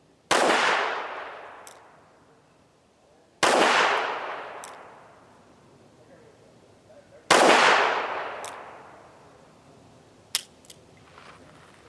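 Three shots from a Charter Arms Undercover .38 Special snub-nose revolver, fired single action with cast-bullet loads, about three to four seconds apart, each ringing out and dying away over a couple of seconds. Sharp light clicks fall between the shots and twice more near the end.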